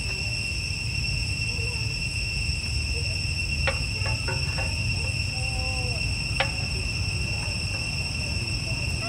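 Steady, high-pitched insect drone, typical of a cricket or cicada, holding one unbroken tone. Two sharp clicks or knocks come about a third and two-thirds of the way in.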